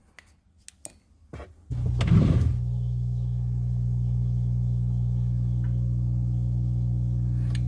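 Dishwasher briefly goes quiet, with a few clicks, then its motor starts with a short rush of water and runs on with a steady hum, on a test run of its newly connected drain.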